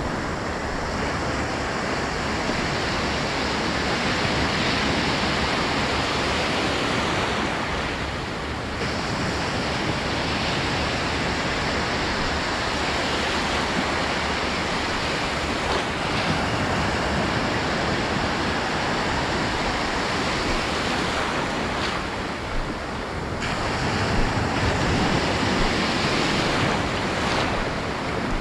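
Ocean surf breaking on the beach: a continuous rushing wash of waves that eases off briefly twice and builds again, with wind buffeting the microphone.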